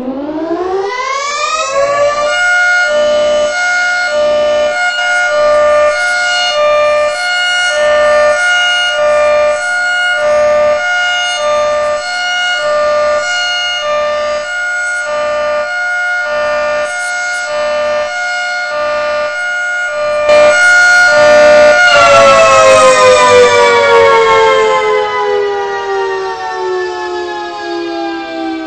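Federal Signal 3T22 three-tone electromechanical siren sounding a test: it winds up to full pitch over the first two seconds, holds a steady chord that pulses evenly, then winds down in a long falling glide starting about three-quarters of the way through.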